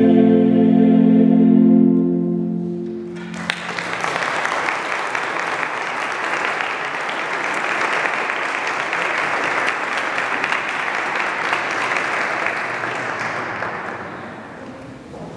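A mixed choir holds the last chord of the song for about three seconds and it dies away, then an audience applauds for about ten seconds, the clapping thinning out near the end.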